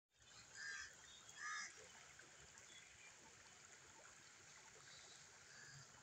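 Faint steady rush of a shallow stream flowing over stones, with short bird calls twice in the first two seconds, the loudest sounds, and a fainter call near the end.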